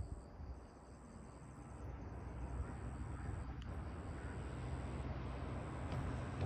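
Insects trilling in long, high-pitched trills, each broken by a short gap every second or two, over a low rumble of road traffic that slowly grows louder.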